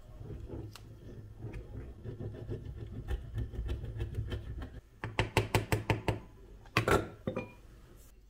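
A steady low hum with scattered light clicks and knocks, then a quick run of about eight sharp clicks some five seconds in, and two more loud clicks near the end.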